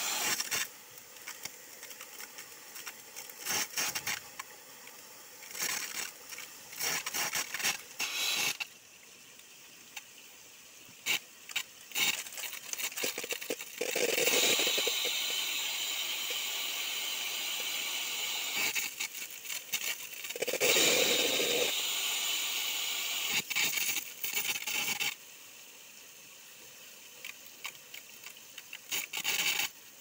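Small mountain stream trickling and splashing among wet rocks, with irregular crackles and clicks throughout. The rush of water grows louder and steadier for several seconds in the middle.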